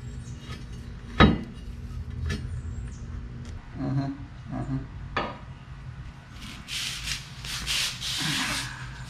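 Metal winch mounting bracket knocking and scraping against the frame of a Polaris RZR as it is worked into place to line up its bolt holes: a few sharp knocks, the loudest about a second in, then a stretch of rubbing and scraping near the end, over a steady low hum.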